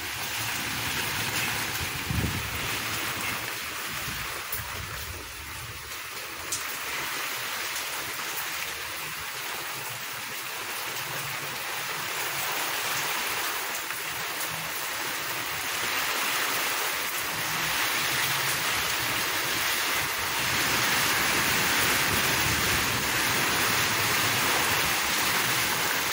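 Steady rain pouring down in a thunderstorm, a dense hiss of falling water that grows heavier and louder over the second half.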